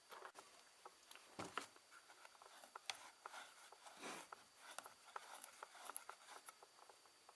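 Near silence, with a few faint scattered clicks and taps.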